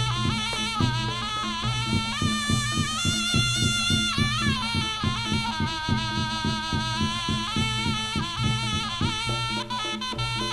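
Jaranan accompaniment music: a slompret-style reed wind instrument plays a wavering melody over quick, even drum strokes and a steady low tone. The melody climbs about two seconds in and drops back about two seconds later.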